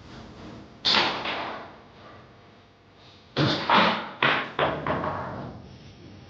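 Foosball play on a Tornado table: the ball cracking off the plastic men and the table walls, one sharp knock about a second in, then a quick run of about five knocks.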